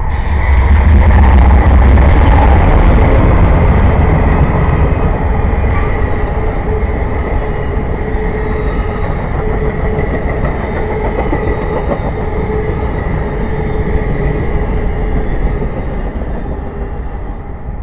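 Amtrak passenger train passing close by. A GE Genesis diesel locomotive's engine runs loudly past first, then a long string of Superliner bi-level cars rolls by with steady wheel-on-rail noise and a faint steady ringing note. The noise fades near the end as the last car passes.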